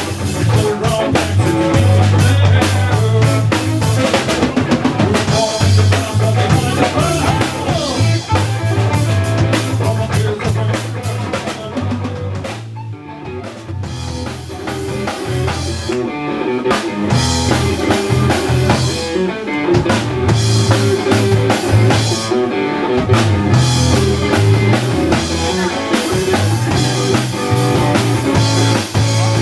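Live blues-rock band playing an instrumental passage, the drum kit prominent with bass drum, snare and rimshots over bass and electric guitar. The playing drops quieter for a moment about halfway, then builds back up.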